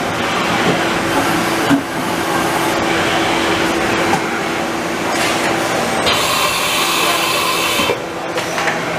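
Haas VF-2SS CNC vertical machining center running under power: a steady machine hum with a constant tone, then a brighter, higher whine and hiss for about two seconds near the end.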